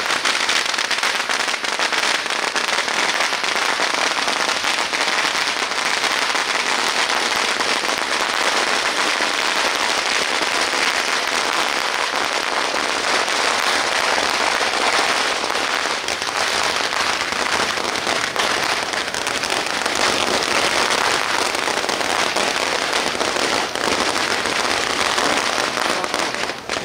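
Strings of firecrackers going off in a dense, unbroken crackle of rapid pops.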